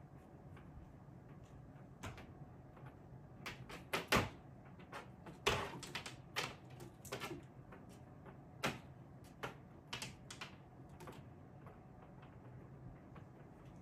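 A cat swatting at a toy dangling on a wire from a carpeted cat tree: irregular knocks, taps and clatters as paws strike the toy and the tree. The loudest knocks come about 4 and 5.5 seconds in.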